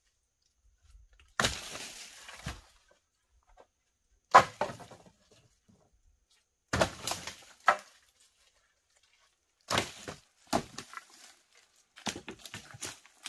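Dead wooden logs and branches being picked up, knocked together and tossed aside on the forest floor: a series of separate wooden knocks, scrapes and cracks a few seconds apart, with a quick cluster of them near the end.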